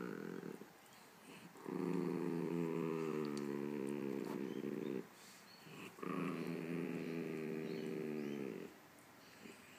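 Chihuahua growling at a poodle that is nosing at its mouth: a short growl at the very start, then two long, low growls of about three seconds each. It is a warning to back off.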